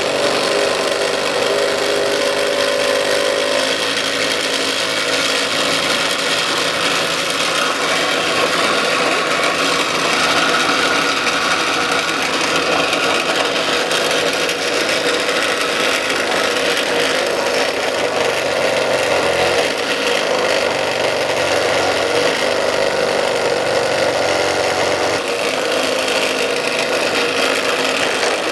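Electric scroll saw running, its straight-up blade stroking up and down as it cuts wood: a loud, steady mechanical buzz whose pitch shifts a little as the cut loads the motor.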